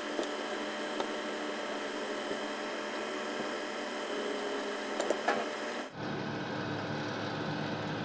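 A steady background hum, with a few light clicks and knocks of angle-grinder housing parts being handled, one about a second in and a short cluster around five seconds in. The background changes abruptly about six seconds in.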